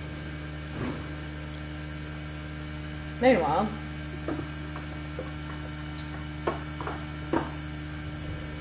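Steady electrical mains hum, with a few light clicks and taps about two thirds of the way through.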